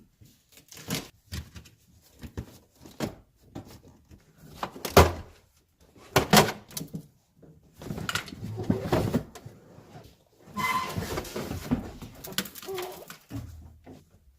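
Irregular knocks, clunks and rustling scrapes of car interior parts and carpet being pulled loose and handled, with two longer stretches of rustling in the second half.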